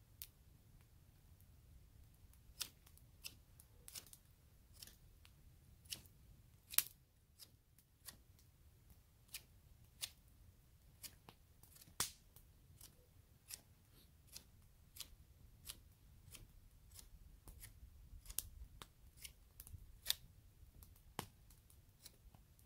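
Wood fire crackling, with sharp, irregular pops about one or two a second over a faint low rumble.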